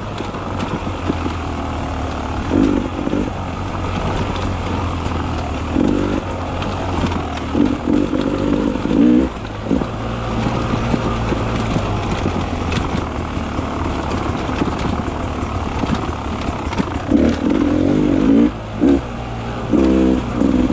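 Beta 300 RR two-stroke enduro motorcycle engine running under way, its note rising and falling as the throttle is worked. There are short bursts of higher revs several times.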